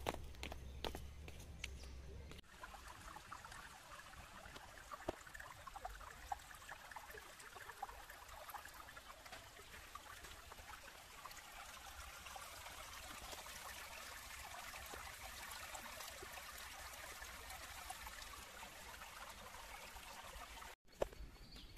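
A few footsteps on wet stone steps. Then a shallow stream runs steadily over rocks and pebbles, trickling, until it cuts off abruptly near the end.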